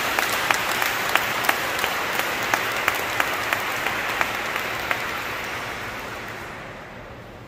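Congregation applauding, with one clapper's claps standing out about three times a second. The applause dies away over the last couple of seconds.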